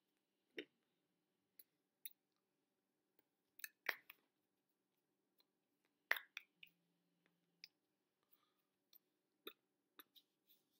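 Near silence broken by scattered faint clicks and taps from a person signing, the loudest about four and six seconds in.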